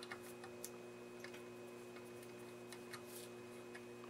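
Faint, irregular small clicks and scrapes as fingers work the metal slider band along an adjustable wirewound power resistor, over a steady low hum.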